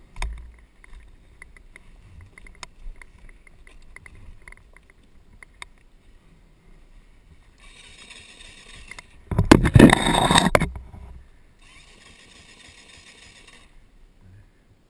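Scattered knocks and rustling from handling a downed, mud-soaked dirt bike, with a loud scraping rush lasting a second or two about nine to ten seconds in and softer hissing before and after it.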